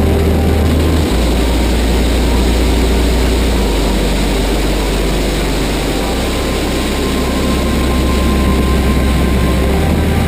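In-car sound of the CN-Cobra RS4 race car's LS7 V8 running hard at speed, mixed with heavy wind rush over the open cockpit.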